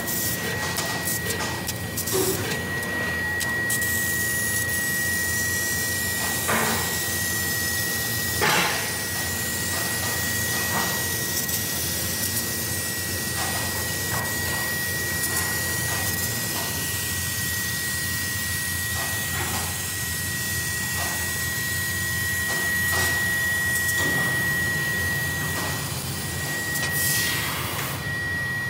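CNC laser cutting machine cutting steel sheet: a steady high whine over a hiss, with a few sharp clicks along the way.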